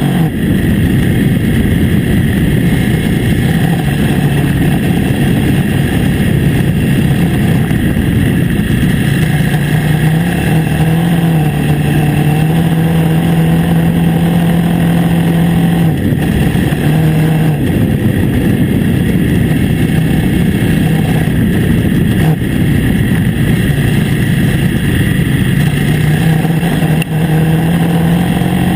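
KTM 950 Adventure S's 942 cc V-twin engine running at a steady cruise on a gravel track. Its note holds steady for long stretches and shifts slightly a few times, under a constant rough rumble.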